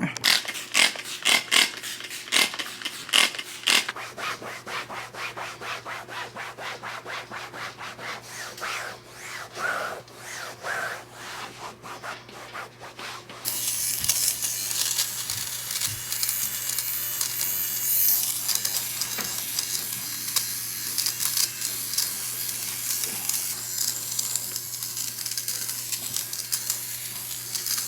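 Stain remover being scrubbed into an upholstered fabric headboard with a brush: rhythmic rubbing strokes, changing about halfway through to a louder, steadier scrubbing.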